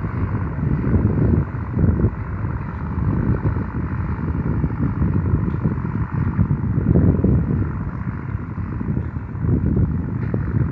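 Wind buffeting the microphone in uneven gusts, over the steady distant running of a New Holland TT4.55 tractor under load, pulling a duck-foot cultivator.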